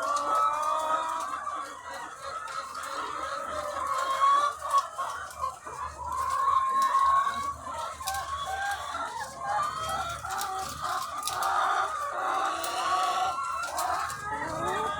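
A large flock of egg-laying hens clucking and calling all at once, a dense, continuous chorus of overlapping calls with scattered sharp clicks.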